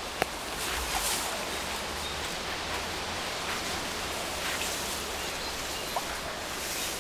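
Climbing rope being hauled in hand over hand by its recovery line, swishing and rustling through the hands over steady outdoor noise. A sharp click sounds just after the start and a smaller one near the end.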